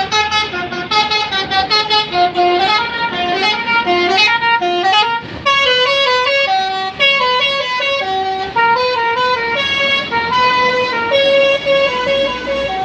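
Bus telolet horn playing a melody on its multi-tone air horns, loud: quick short notes at first, then about five seconds in a slower tune with longer held notes.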